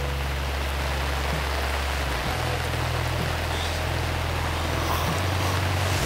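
Steady rain falling on the surface of a reservoir, an even hiss, over a low steady rumble.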